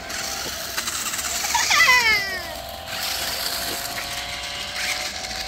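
A child's loud, high squeal falling in pitch about two seconds in, followed by the steady whine of toy remote-control monster trucks' electric motors.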